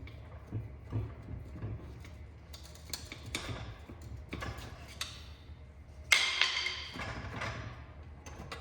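Metal hand tools clicking and tapping against a manual transmission casing, with one loud ringing metal clank about six seconds in.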